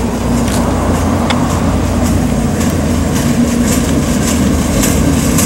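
Diesel locomotive running with a steady low drone, with light clicking over it.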